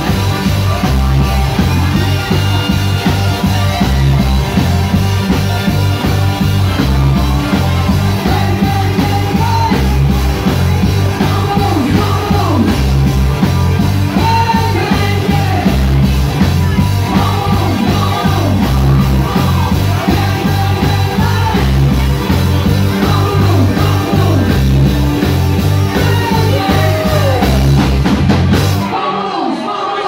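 Live rock band playing with a lead singer over a steady, repeating bass line. The band stops abruptly about a second before the end.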